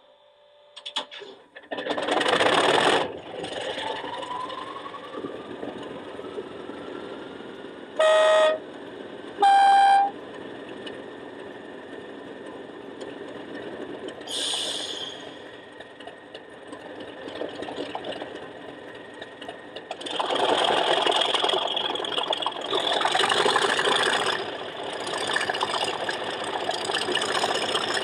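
ESU LokSound 5 sound decoder in an Accurascale Class 37/0 model locomotive, heard through its onboard speaker, playing an English Electric diesel starting up about two seconds in, with a whistle rising as it settles. Two horn blasts follow about eight and ten seconds in, the second higher. From about twenty seconds the engine revs hard with a rising whistle while drive hold keeps the locomotive stationary.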